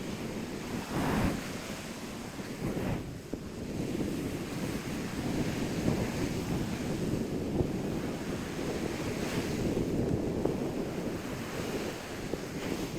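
Ocean surf washing on the shore, a steady rushing that swells and eases, with wind buffeting the microphone.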